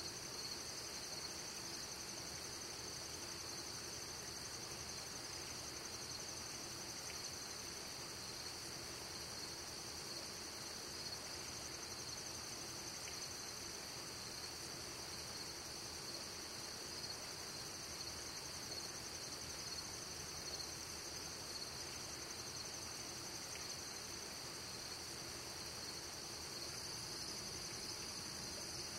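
A steady chorus of night-singing insects, a high-pitched trilling that never breaks, over a faint hiss.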